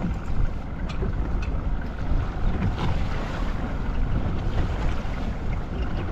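Wind buffeting the microphone on a boat at sea, a steady low rumble with water noise, and a few faint ticks.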